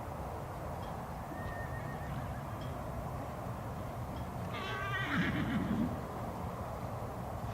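A horse whinnying once, about four and a half seconds in: a high, wavering call that drops into a low rumble.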